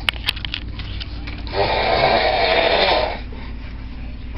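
A man snoring: one long snore lasting about a second and a half in the middle, with the next snore starting right at the end. A few sharp clicks come just after the start, as the previous breath ends.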